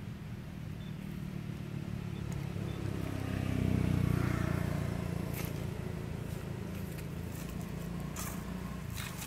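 Low engine rumble of a motor vehicle passing, swelling to its loudest about four seconds in and then easing off. A few sharp clicks come in the second half.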